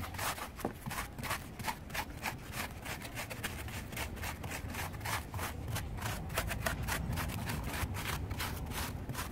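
Paintbrush loaded with wood impregnant brushed in quick back-and-forth strokes over the dry, rough deadwood of a bougainvillea bonsai: a scratchy swish at about three strokes a second.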